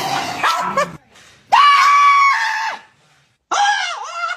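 Loud, high-pitched screaming cries: a ragged scream in the first second, then a long steady cry, and about a second later another cry that wavers in pitch.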